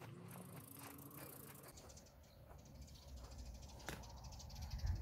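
Quiet outdoor ambience with a low rumble building from about three seconds in, and one faint sharp click near the end.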